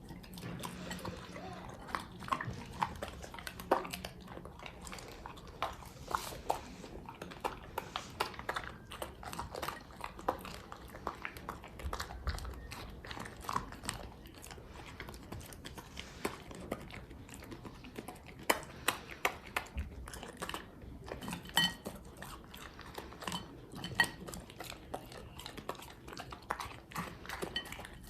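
A dog eating from a bowl: irregular chewing with frequent short clicks and clinks against the bowl.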